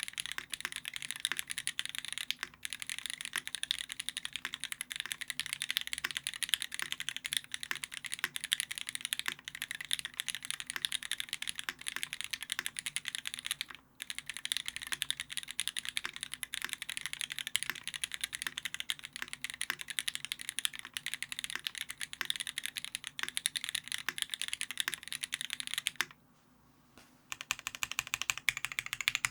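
Fast, continuous typing on a Keycult no.2 custom mechanical keyboard with lubed and filmed vintage Cherry MX Black linear switches on a brass plate, under GMK keycaps. The typing stops for about a second near the end, then resumes with evenly spaced keystrokes.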